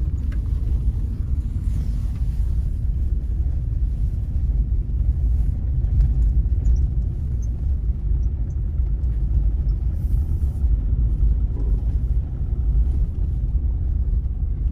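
Mahindra Scorpio SUV driving on a snow-covered road, heard from inside the cabin: a steady low rumble of engine and tyre noise.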